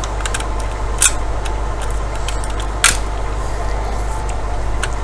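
Two sharp clicks of small plastic and metal router parts being handled, about one and three seconds in, with a few fainter ticks, over a steady low hum.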